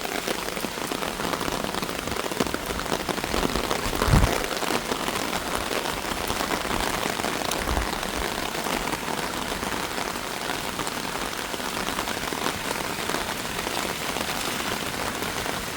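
Steady rain falling on hard surfaces, a dense even patter, with a brief low thump about four seconds in.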